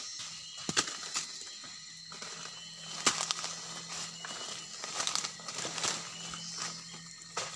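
Dry fallen leaves and undergrowth rustling and crackling underfoot and against the body as someone walks through leaf litter, with several sharp crackles.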